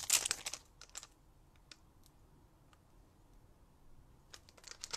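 Light clicks and rustling of card and a stamp being handled and lined up on a Stamparatus stamp-positioning tool. A quick cluster of clicks at the start, a few single ticks after that, and more just before the end.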